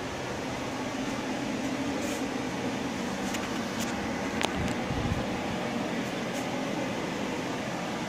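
Steady rushing hum of grow-room fans running, with a few faint clicks.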